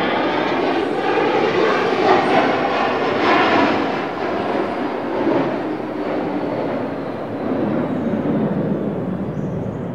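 Sci-fi spaceship engine sound effect: a steady, jet-like rushing engine noise that swells and eases a few times.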